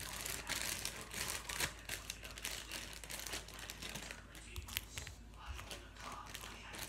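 Close crinkling and crackling from something being handled: a dense run of small sharp clicks that thins out after about four seconds.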